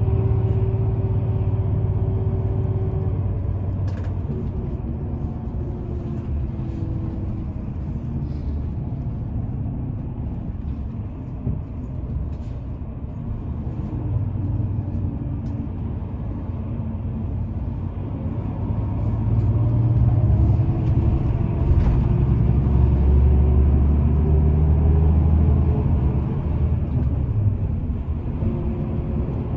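Motor vehicle engines running: a steady low rumble from road traffic that grows louder from about twenty seconds in, then eases off.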